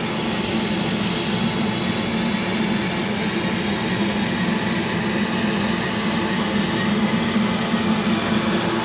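Chinese CO2 laser cutter running a cut in corrugated cardboard: a steady whirring hum from its air-assist pump and fans as the laser head traces the jigsaw lines.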